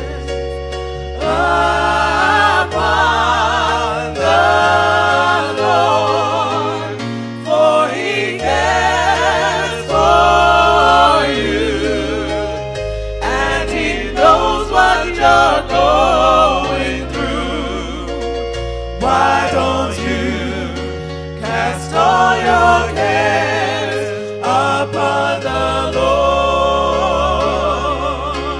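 Gospel music: singing with a wavering vibrato over held low bass notes.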